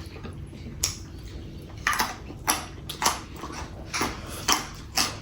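A person eating: close-up chewing with sharp, wet mouth smacks and clicks, about one every half second from about two seconds in.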